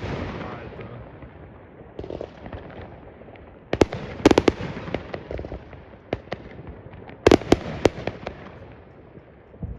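Fireworks exploding: a volley of sharp bangs about four seconds in and another a little past seven seconds, each followed by a fading rumble and crackle.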